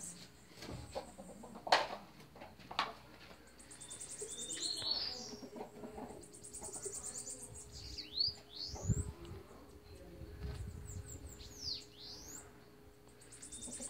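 Bananaquits (sibites) singing: very high, rapid buzzy trills repeated several times, with quick sliding chirps in the second half. A few sharp knocks sound in the first three seconds.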